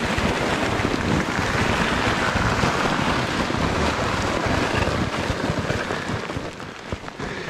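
Steady rushing noise of hurrying downhill on an icy snow trail towing a loaded toboggan, with wind buffeting the microphone.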